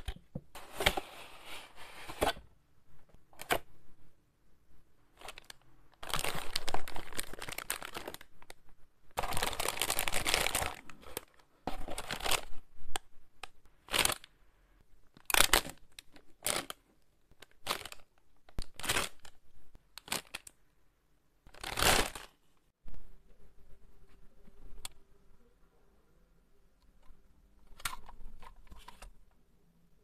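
Clear plastic packaging bags crinkling and rustling as toy parts are unpacked. The sound comes in several bursts of a second or two, with scattered short clicks between them.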